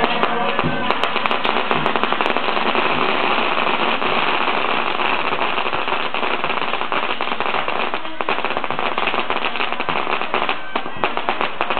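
A string of firecrackers going off in a rapid, continuous crackle, thinning into more separate bangs near the end.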